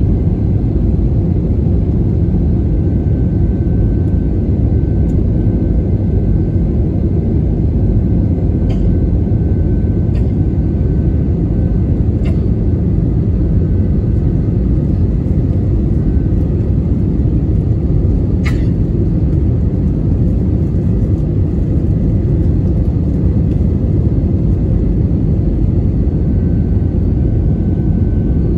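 Steady cabin rumble inside an Airbus A320 on approach, the engine and airflow noise heard from a window seat, with a faint steady whine over it. A single sharp click comes about two-thirds of the way through.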